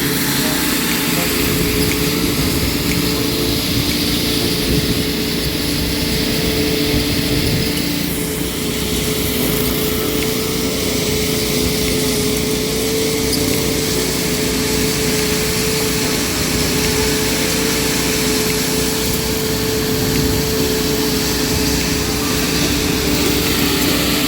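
A small engine running steadily at constant speed, with a steady hum.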